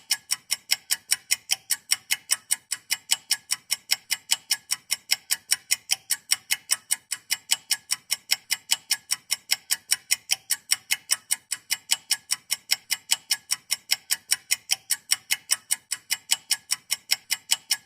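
Stopwatch ticking steadily and rapidly, about five sharp, high clicks a second.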